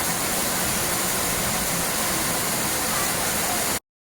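Steady rushing of flowing water, a stream or small waterfall, as an even hiss that cuts off abruptly into silence just before the end.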